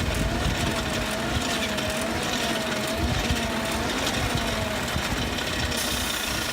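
Blacksmith's forge blower running while a piece heats in the fire: a steady low rumble with a whine that wavers up and down about once a second, fading out about five seconds in.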